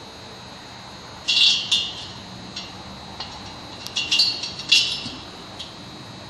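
Small metal hardware clinking and scraping as bolts and insert nuts are fitted into the steel elbows of a barricade bar: a string of short, sharp metallic clicks in irregular clusters.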